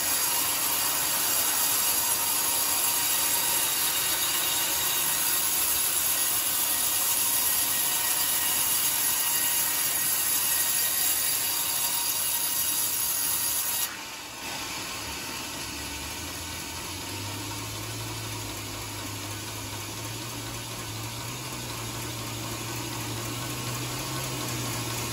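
Band sawmill blade cutting lengthwise through a coconut-palm log, a steady saw noise. About 14 seconds in the sound drops abruptly, and a low steady hum sets in a couple of seconds later.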